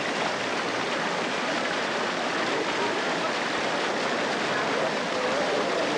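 Crowd ambience: a steady rushing noise with faint, indistinct voices of many people.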